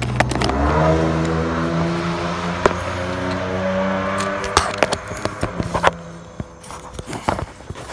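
A vehicle engine running. It rises in pitch just after the start, holds steady and fades out about six seconds in, with scattered sharp clicks and knocks throughout.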